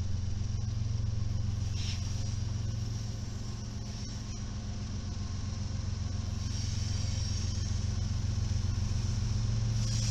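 Diesel engines of a BNSF freight train's lead locomotives running as the train approaches: a steady, deep engine drone, with a higher hiss growing louder about six seconds in and again near the end.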